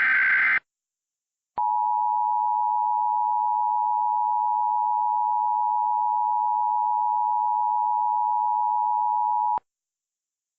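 The end of a SAME header data burst, a short buzzy warble, stops half a second in. After about a second of silence, the Emergency Alert System two-tone attention signal (853 and 960 Hz together) sounds steadily for eight seconds and cuts off. This is the alert tone that opens a Child Abduction Emergency (Amber Alert) broadcast.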